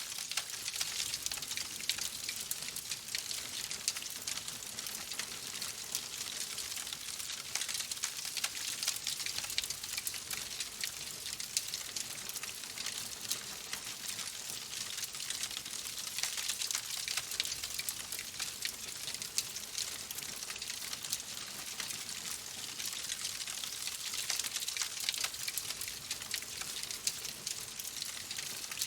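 Wood fire crackling steadily: a dense run of small pops and snaps over a soft hiss.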